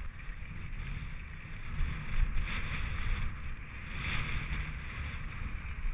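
Mountain bike rolling down a loose gravel and rock trail, tyres crunching and rattling over the stones, under a steady low wind rumble on the microphone.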